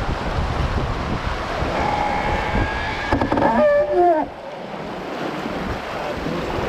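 Wind buffeting the microphone over water rushing and splashing along the hull of a sailing yacht running under spinnaker. Near the middle a brief pitched, wavering sound rises above it, and the rush eases a little after it.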